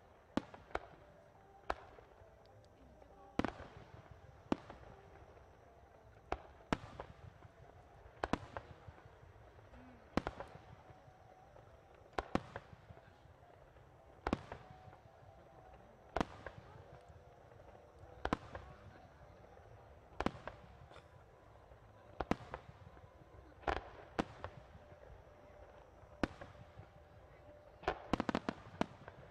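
Fireworks bursting as a series of sharp booms, about one every two seconds.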